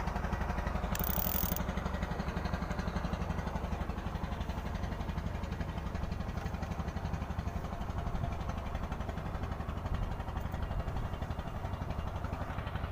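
A boat's engine running steadily, with a fast, even pulse.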